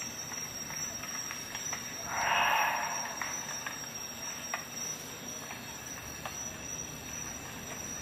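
Gloved hands handling a Victorinox Rescue Tool: scattered light clicks of its metal parts, and a louder scraping rub about two seconds in that lasts about a second.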